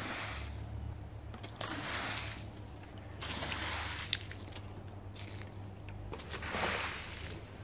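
A stream of water pouring and splashing onto a soaked shag carpet, rising and falling in several surges as the stream moves over the pile. There is one short sharp tick about four seconds in.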